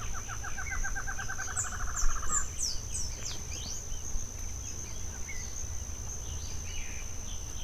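Wild birds calling: a rapid trill of evenly repeated notes, about ten a second, that stops about two and a half seconds in, then scattered short high chirps that drop in pitch. A steady high-pitched whine runs underneath.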